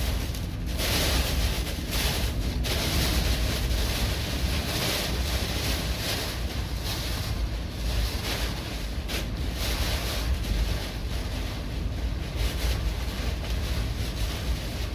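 Strong typhoon wind buffeting the microphone with a steady low rumble, over a rushing noise of wind and rough surf that swells and eases every few seconds.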